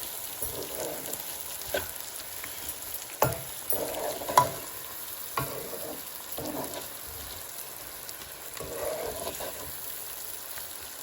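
A pot of stewed chickpeas sizzling on the stove while it is stirred, with a few sharp knocks against the pot.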